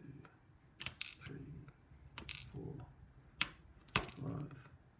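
Sharp little metal clicks and taps as a pin-tumbler padlock core is taken apart by hand: the brass plug pushed out with a plug follower and its pins coming out. It is several separate clicks, the loudest two about three and a half and four seconds in.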